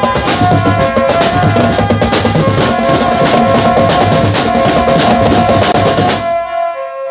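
Drum band playing: dense snare and bass drum strokes under a held melody line. The drumming stops about six seconds in, leaving a held note ringing.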